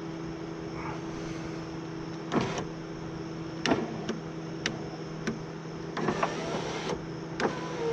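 2002 Honda Civic power window motor and newly replaced regulator running with a steady electric hum, with a series of sharp clicks and knocks as the glass travels. The glass may not be seated properly in its track.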